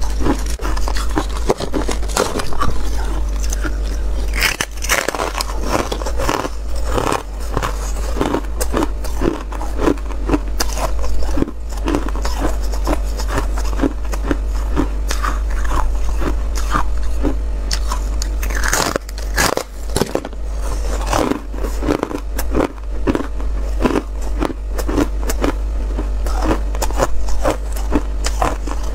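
Frost-covered freezer ice being bitten and chewed close to the microphone: a dense, continuous run of crisp crunches, cracks and scrapes, over a steady low hum.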